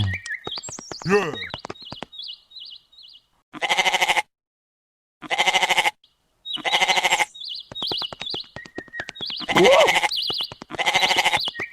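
An animal bleating: about five short, pulsed calls, each under a second, with brief high bird-like chirps between them.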